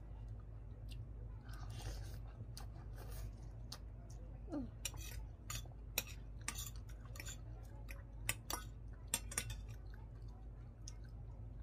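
Metal spoon and fork clinking and scraping on a ceramic plate while the last noodles are gathered up, a series of sharp taps and clicks mostly in the middle, with chewing between them. A low steady hum runs underneath.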